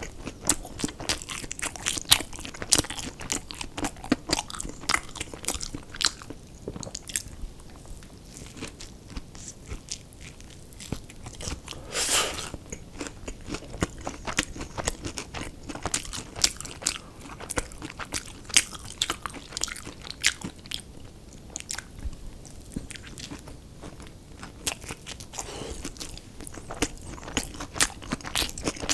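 Close-miked eating: a person biting and chewing crunchy fried fast food, with dense irregular crunches and crackles. About twelve seconds in there is a brief, louder rush of noise.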